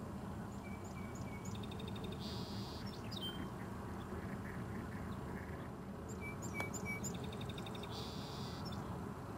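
A songbird singing one song twice, about six seconds apart: a few short clear notes, then a fast trill, a buzz and a falling closing note. A steady low background rumble runs underneath.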